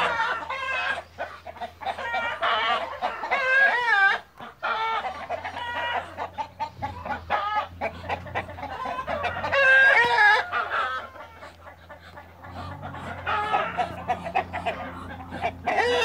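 Backyard chickens clucking and calling over and over, with two longer wavering calls about four seconds in and again about ten seconds in.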